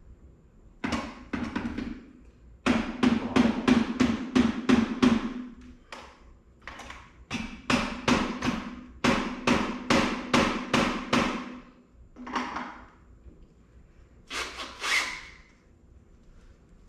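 Hammer blows on a Honda CB750's front-fork top parts, knocking a part loose that has no fasteners left holding it. The strikes come in runs of several a second with pauses between, and a low ring of metal carries through the fast runs.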